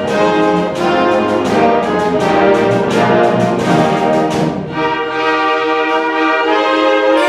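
Symphony orchestra playing, brass to the fore: a run of strongly accented, rhythmic chords for about the first five seconds, then a held chord in the middle and upper register with the low instruments silent.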